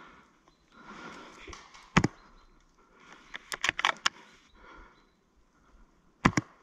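Breathing close to the microphone, with sharp cracks and clicks. The loudest crack comes about two seconds in, a quick run of clicks follows a second or so later, and a sharp double crack comes near the end.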